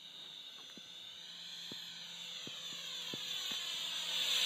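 Electric ducted fan of a radio-controlled F-18 model jet (64 mm fan, changed to a 12-blade rotor) whining high as the jet flies in, growing steadily louder as it approaches.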